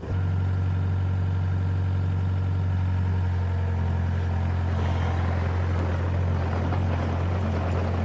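Tractor engine running with a steady low drone that cuts in suddenly and holds level.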